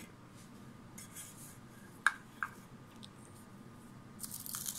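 Ceramic bowls and a plate being handled on a table: two sharp clinks a little after two seconds in, then a scratchy rustle near the end.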